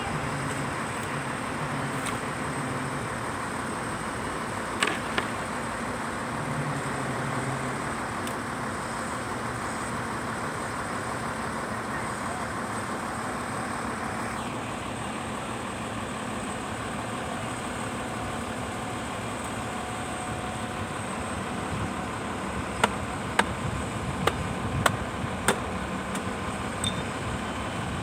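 Truck crane's engine running steadily under a constant noisy hum. A handful of sharp knocks come in quick succession near the end.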